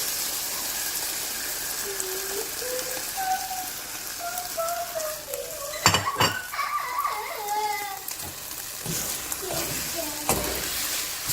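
Tortilla strips and ham sizzling in oil in a frying pan, with a utensil knocking sharply against the pan about six seconds in and again near the end.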